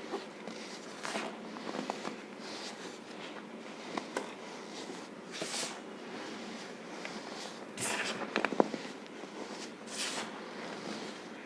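Baking soda and cornstarch powder being pressed and crushed, giving irregular crunchy bursts with a few squeaks. The loudest cluster comes about eight seconds in.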